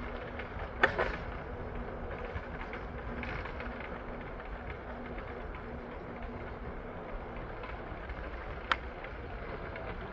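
Steady vehicle and street noise with a faint low hum, broken by two sharp clicks, one about a second in and one near the end.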